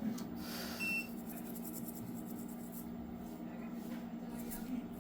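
A single short, high electronic beep about a second in, over a steady low electrical hum from the repair bench equipment, with faint scratching later on.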